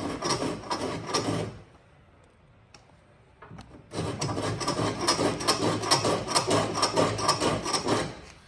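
Steel shoulder plane taking rapid short shavings off a softwood joint shoulder, trimming a chiselled lap clean. One run of strokes lasts about a second and a half, and after a pause a longer run of quick strokes lasts about four seconds.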